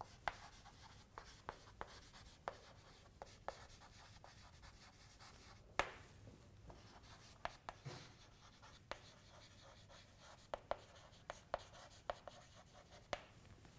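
Chalk writing on a blackboard, faint: scratchy strokes with frequent sharp taps as the chalk meets the board, one louder tap about six seconds in.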